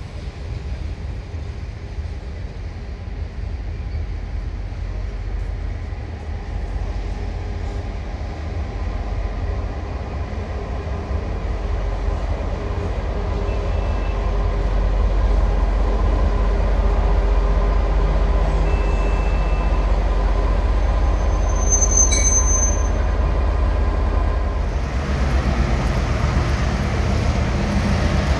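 Diesel-electric locomotive engine running with a heavy low rumble as it hauls freight wagons slowly through the station, growing louder toward the end. A brief high squeak comes about two-thirds of the way through.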